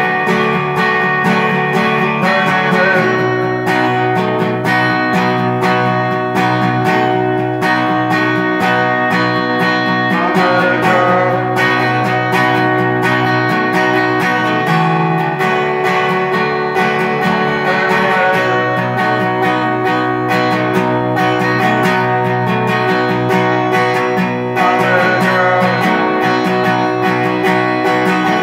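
Acoustic guitar strummed steadily, playing a continuous chord pattern.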